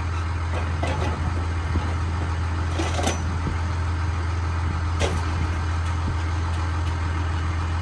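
Truck engine running with a steady low drone, and three brief knocks about one, three and five seconds in.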